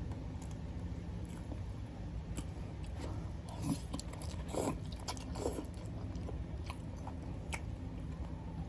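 Close-up eating sounds from a person eating ramen noodles: chewing and small mouth clicks over a steady low hum, with three louder wet mouth sounds a little past halfway.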